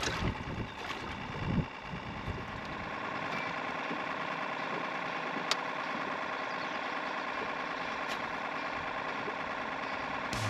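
A boat motor running steadily as a continuous hum. In the first couple of seconds it is mixed with low knocks and buffeting, and two faint ticks come later.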